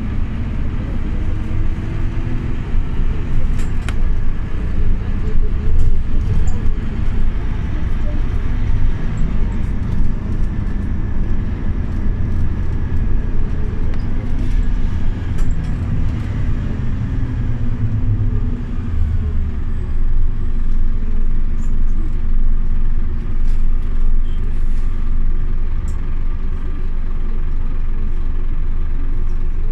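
Scania OmniLink CK270UB city bus under way: its diesel engine's hum slowly rises and falls in pitch as the bus speeds up and slows, over a steady low road rumble.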